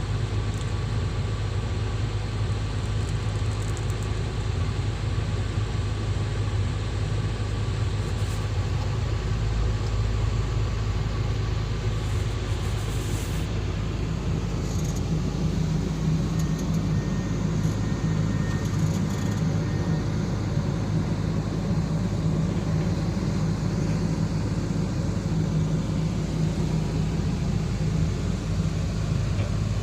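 Excavator's diesel engine and hydraulics running steadily under work, with a deeper hum building in about halfway through.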